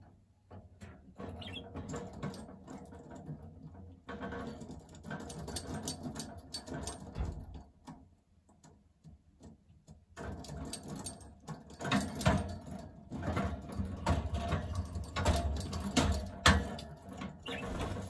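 A budgerigar at its wooden bead-and-bell toy: a dense run of clicks and rattling chatter in two long stretches, with a short pause about eight seconds in.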